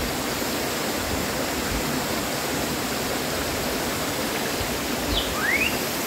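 Waterfall water rushing, a steady even wash of noise. About five seconds in, a short rising whistle-like call sounds over it.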